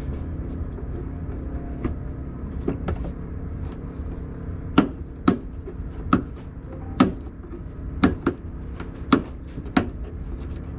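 Irregular sharp clicks and knocks of hand tools on metal while a car battery mount is being worked on. They come about a dozen times over a steady low hum, growing louder from about halfway through.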